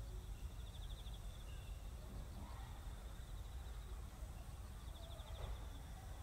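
Quiet rural ambience: an insect trilling in short pulsed bursts over a low steady rumble, with a faint knock about five seconds in.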